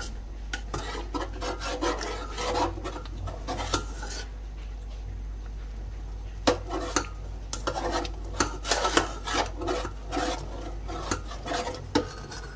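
Metal spoon scraping and rubbing against the bottom and sides of a large metal pot while stirring thick, cooking kheer, in repeated irregular strokes with a short lull near the middle.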